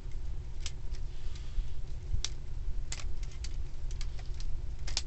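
Plastic parts of a Power Rangers Plesio Charge Megazord toy clicking and snapping as they are turned and fitted during transformation: a few sharp clicks spread out, over a low steady hum.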